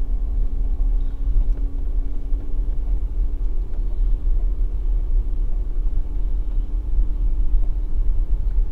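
Car driving slowly along a dirt road: a steady low rumble with a constant engine drone.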